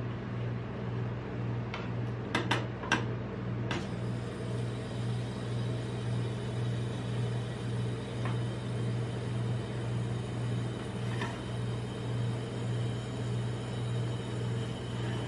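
Steady low hum of a rolled-ice-cream machine's refrigerated steel cold plate. About two to four seconds in come a handful of sharp clicks of metal tools tapping the plate, and later faint scrapes as a steel spatula pushes across it, rolling the frozen ice cream.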